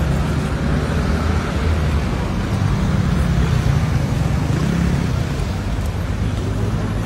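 Steady street ambience: a low rumble of traffic with a hiss over it.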